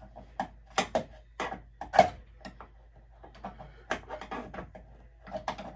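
Irregular metal clicks and knocks of a screwdriver prying and wiggling a knockout slug back and forth in an electrical service panel box to break it free, with the sharpest knock about two seconds in.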